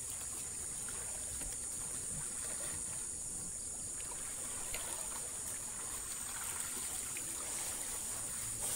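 Water sloshing and trickling as several people wade through a muddy pool, over a steady high-pitched hiss.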